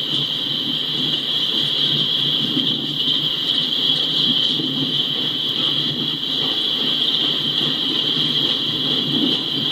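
Empty coal train cars rolling past, a steady rumble of wheels on rail with a constant high hiss above it.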